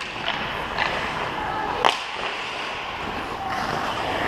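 Ice hockey skate blades scraping and carving across rink ice, with sharp clacks of a hockey stick and puck, one at the start and a louder one about two seconds in.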